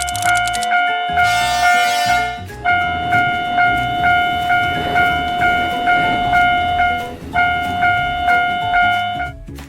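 Japanese railroad crossing warning bell ringing in a steady kan-kan rhythm, about two strokes a second, breaking off twice and stopping near the end. A rushing noise rises under it midway, as of a train passing.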